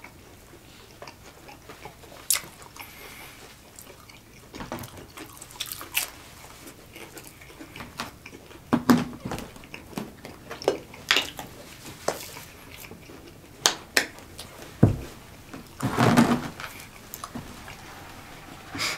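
Mouth sounds of people eating chicken nuggets: irregular wet smacks and clicks of chewing, louder and more frequent in the second half, with a low thump shortly before the louder stretch near the end.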